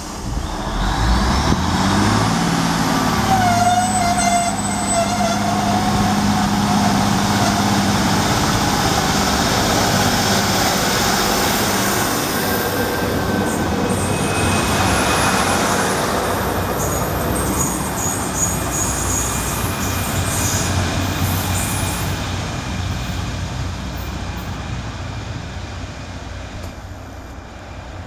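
Class 153 diesel multiple units pulling away from a platform: the underfloor diesel engines rev up about a second in and run steadily as the carriages roll past, with a brief wavering whine a few seconds in. The sound then fades as the train draws away.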